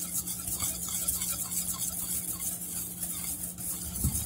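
Wire whisk stirring dry baking-soda bath bomb mix in a stainless steel bowl, in quick even strokes several a second, working freshly added dye droplets through the powder. A steady low hum runs underneath.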